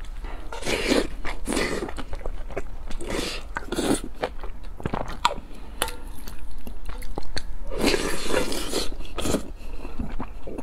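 Close-miked eating sounds: wet chewing and mouth smacks on spoonfuls of sauce-mixed rice, with a wooden spoon working the rice in a brass bowl. The sounds come in irregular bursts with small clicks between them.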